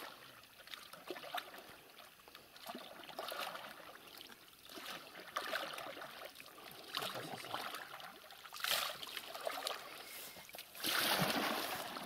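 Plastic oars dipping and splashing as an inflatable rubber boat is paddled across calm water, a stroke every second or two. The loudest splashing comes about eleven seconds in, as the boat comes up to the bank.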